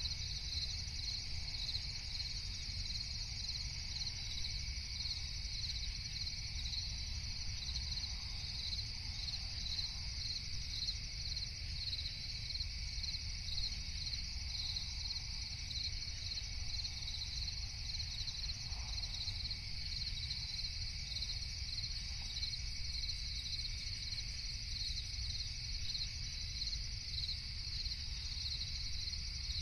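Night-time crickets chirping continuously in an even, pulsing rhythm, over a steady low rumble.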